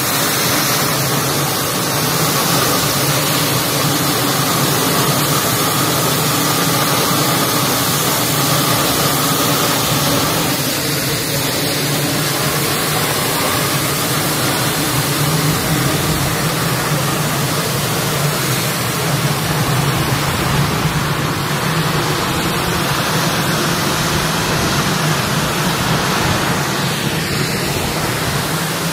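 A row of confetti blower machines running together: a loud, steady rush of air with a constant motor hum underneath.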